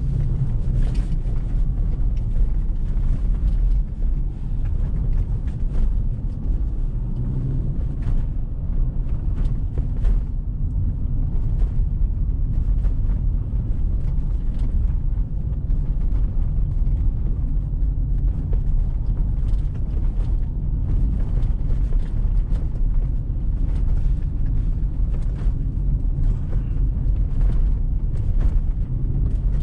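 Car driving on a snow-covered road: a steady low rumble of engine and tyre noise, with occasional faint ticks.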